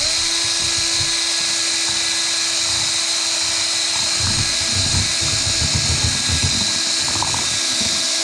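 Electric drill running steadily, spinning a paint-mixer attachment in a can of separated paint, its motor whine stepping up in pitch right at the start. Irregular low churning from the stirred paint comes in, strongest about midway.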